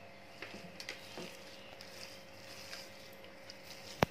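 Bare hands mixing a mashed-potato, semolina and poha mixture in a glass dish: faint soft squishing and light taps over a faint steady hum. A single sharp click about four seconds in.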